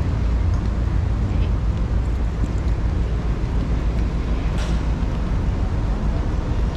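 Outdoor background noise: a steady low rumble with nothing standing out from it.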